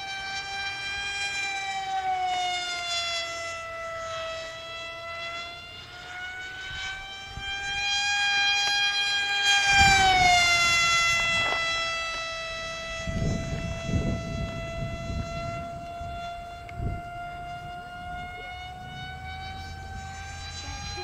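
Electric motor and propeller of a 3D-printed RC canard plane whining overhead, a high tone that wavers in pitch with throttle. It grows loudest about ten seconds in as the plane passes close, and its pitch drops as it goes by.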